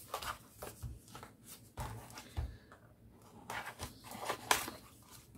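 Quiet handling of a small cardboard kit box on a tabletop: soft rustles, scrapes and light taps as the box is moved and the scissors are picked up to open it.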